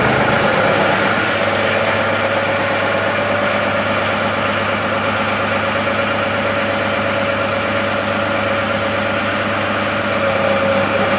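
A John Deere compact tractor's three-cylinder diesel engine idles steadily, just after starting, while its newly installed hydraulic pump primes. The sound grows slightly louder near the end.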